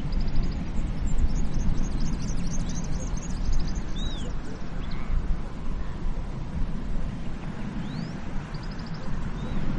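Ocean waves washing onto a beach: a steady rushing surf with a low rumble. Small birds chirp and trill high above it, mostly in the first few seconds and again near the end.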